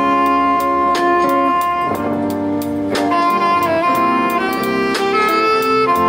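Jazz band music: a saxophone carries the melody over backing chords, with a steady cymbal tick keeping time.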